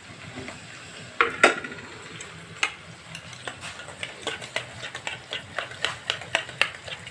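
Yogurt being whisked with a metal fork in a small steel bowl, the fork clinking against the bowl. A few louder knocks come in the first few seconds, then quick, even strokes at about four a second.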